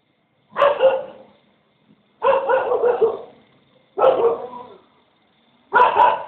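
A dog barking: four loud bark bursts, the first about half a second in and the rest about every 1.7 seconds, one falling near the end.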